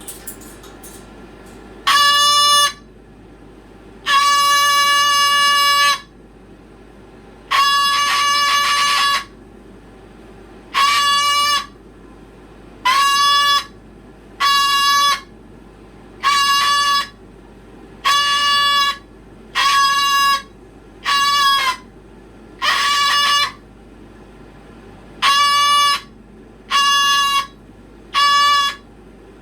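A pet's loud, steady-pitched call repeated over and over, each call held from about half a second to two seconds with short gaps between.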